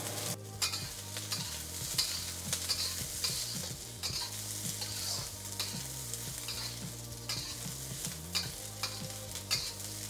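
Garlic, dried chili peppers and green onion sizzling in hot oil in a carbon steel wok, with a metal wok spatula scraping and tossing them in repeated strokes, roughly two a second.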